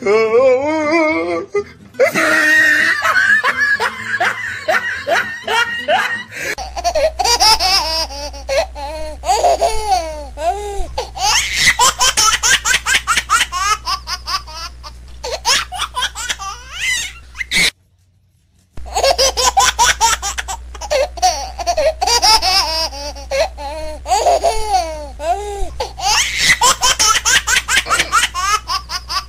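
A baby laughing and giggling in rapid, repeated bursts, breaking off for about a second just past the middle.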